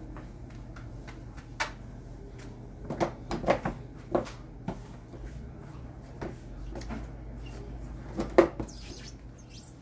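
Hollow knocks and bumps on a red plastic toddler slide as a small child climbs onto it and settles at the top. The knocks come irregularly, a cluster of them in the middle, and the sharpest one near the end.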